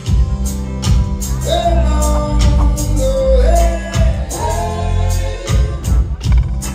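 Reggae band playing, with a male voice singing over a steady bass line and regular drum strokes.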